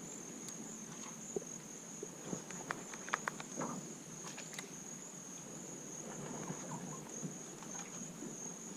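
Insects calling steadily in a single high-pitched drone, with a few faint clicks about three seconds in.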